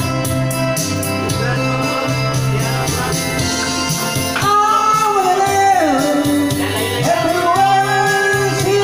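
Karaoke: a recorded backing track of a rock song, with a voice singing along into a microphone.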